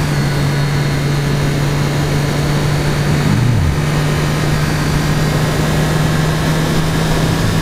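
2013 Triumph Daytona 675R's inline three-cylinder engine running at a steady pitch while riding, with wind noise over the helmet microphone. A short falling sound comes about three seconds in.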